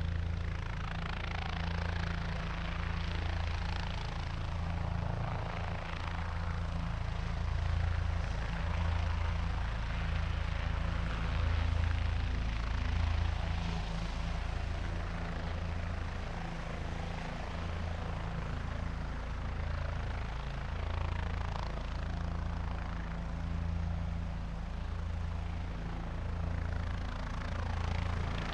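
Helicopter running, its rotor beating in a low pulsing throb under an even rush of turbine and rotor noise.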